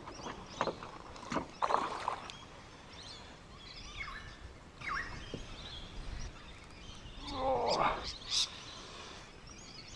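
Wild birds calling and chirping with short sweeping calls over steady outdoor background noise, with a few sharp knocks in the first two seconds.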